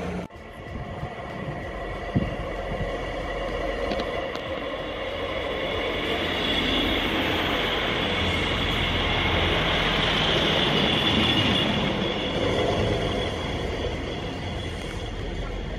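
ScotRail Class 158 diesel multiple unit running into the platform, with a diesel engine rumble, wheel-on-rail noise and a high squeal that is loudest in the middle as it slows.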